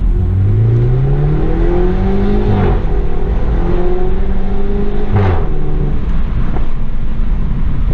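BMW 320i's B48 2.0-litre turbocharged four-cylinder engine under hard acceleration. Its revs rise, drop at an upshift about two and a half seconds in, rise again and drop at a second upshift about five seconds in, then settle to a steadier run.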